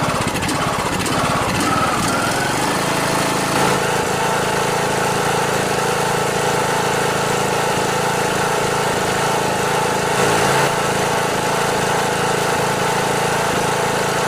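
Briggs & Stratton Intek engine on a riding lawn mower running, its speed uneven for the first few seconds and then settling to a steady run about four seconds in. The engine has a blown head gasket.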